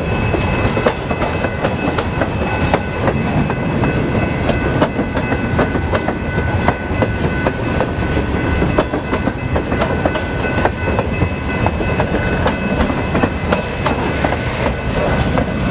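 Freight cars rolling past, wheels clacking over rail joints in a steady rumble, with a faint, steady, high ringing.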